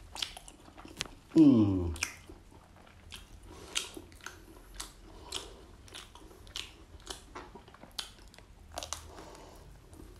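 Grilled crocodile being torn apart by hand and chewed, with many short sharp crackles and crunches from the crisp skin and meat. About a second and a half in comes a brief loud voice sound falling in pitch.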